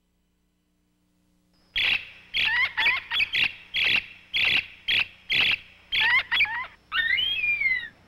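Silence for the first second and a half or so, then a bird's short calls repeated about twice a second, followed near the end by longer calls that slide down in pitch.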